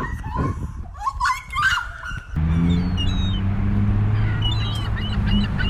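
Gulls calling with short, bending cries for about two seconds. Then the sound cuts to a steady low drone with faint high chirps over it.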